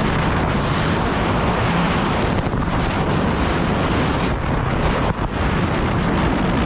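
Wind buffeting the microphone of a Kawasaki Ultra 310 jet ski running at speed through ocean chop, over the steady drone of its engine and the rush of water and spray. The noise drops briefly a little past five seconds in.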